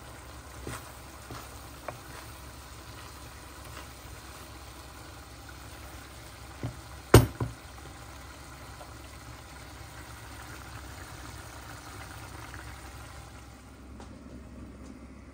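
Wooden spoon stirring bulgur pilaf in a pan, with a faint steady sizzle and a few light scrapes and clicks. About seven seconds in, the spoon knocks against the pan three times, the middle knock sharp and loud.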